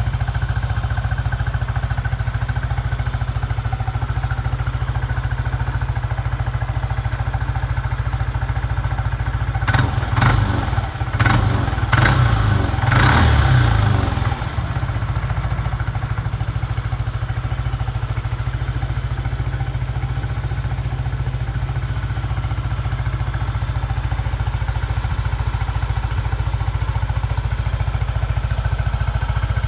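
Yamaha NMAX scooter's single-cylinder four-stroke engine idling through an aftermarket RS8 exhaust pipe, with a cluster of several quick throttle blips about ten to fourteen seconds in before it settles back to a steady idle.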